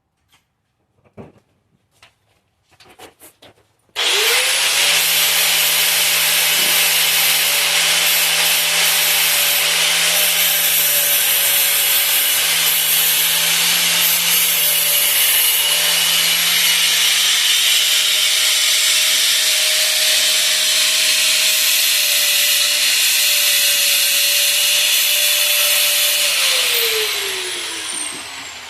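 A few light knocks, then a grinder spins up and grinds metal, running steadily with a constant whine over a loud hiss for about twenty seconds. Near the end it is switched off and spins down with a falling whine.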